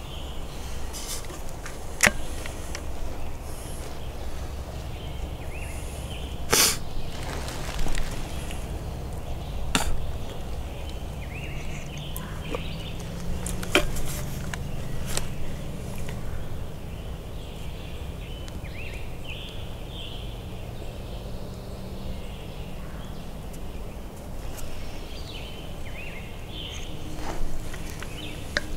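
Woodland ambience: small birds chirping now and then over a steady low rumble, with several sharp clicks spread through it.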